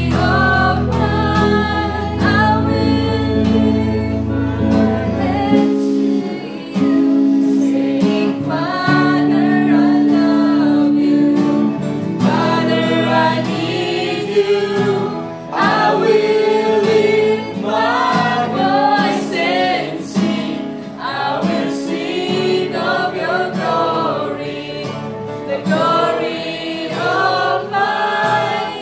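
Small worship band: several women singing a worship song together over an acoustic guitar, an electric guitar and a keyboard. Held low bass notes stop about six seconds in, and the singing and playing carry on.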